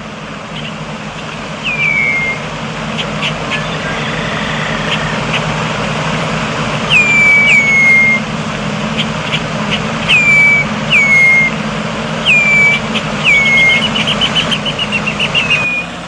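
Red-winged blackbird calling: about seven short, clear whistles that slur downward, then a fast run of chattering notes near the end. A steady low background rumble runs underneath.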